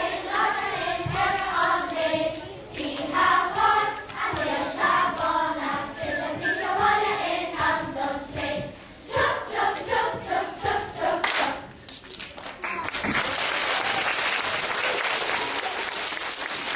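Children's choir singing, with regular hand claps keeping time. The song ends about twelve seconds in, and steady audience applause follows.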